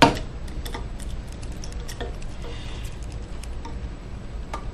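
Carving chisel working into a walnut relief carving: one sharp knock at the start, then faint, irregular light ticks of the blade cutting the wood.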